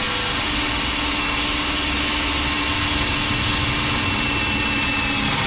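Handheld power drill with a new, sharp bit boring through a painted metal boat panel, running steadily without a break. A faint steady tone sits under the drilling noise for most of the run.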